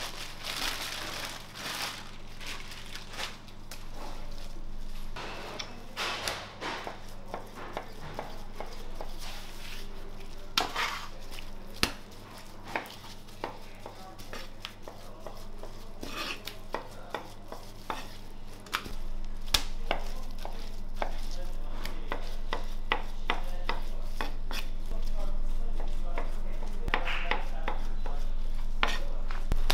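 Butcher's knife slicing beef on a plastic cutting board: many short taps and clicks of the blade against the board, with plastic bag rustling and meat being handled in the first half. A steady low hum runs underneath and grows louder about two-thirds of the way in.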